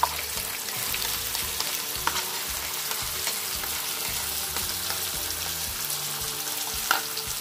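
Oil and food sizzling in a hot frying pan as tomato sauce with lemon is added to frying onion greens and stirred with a spoon. There is a steady hiss with a few light clicks.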